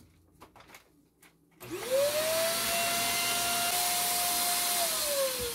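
Upright bagless vacuum cleaner switched on about a second and a half in, picking up wood shavings from carpet. Its motor whine rises quickly to a steady pitch over a loud rushing hiss, then starts to fall near the end as the motor slows. A few light knocks come before it starts.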